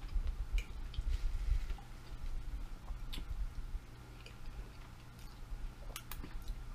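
Eating sounds from a mouthful of shrimp scampi with ramen noodles being chewed, with scattered small clicks and ticks over a low steady hum.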